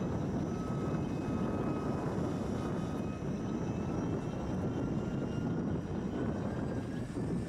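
Dump truck running with a steady low engine noise and a thin, steady high whine while its powered folding cover swings shut over the tipper body.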